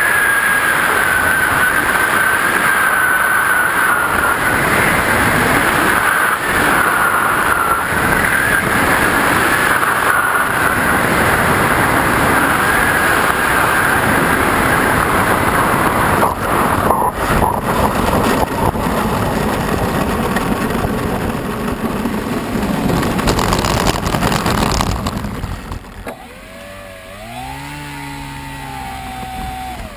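The model plane's motor and propeller give a steady whine under heavy wind rush on the onboard camera's microphone during low, fast flight, the whine drifting slowly lower. About four seconds before the end the rush drops away as the plane comes down onto the road, leaving the motor's lower hum sliding down and back up in pitch.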